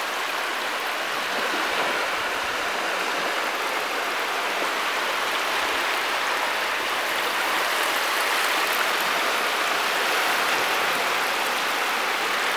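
Shallow surf washing over the sand at the water's edge: a steady rushing hiss.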